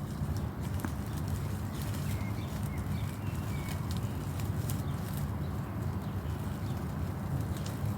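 Wind rumbling on the microphone, with scattered faint rustling clicks and a few faint bird chirps about two to three seconds in.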